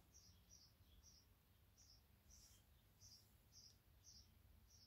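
Near silence, with a faint high chirp repeating about twice a second in the background.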